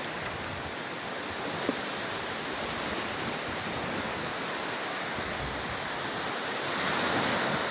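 Sea waves breaking and washing on a beach, a steady rush of surf that swells slightly near the end.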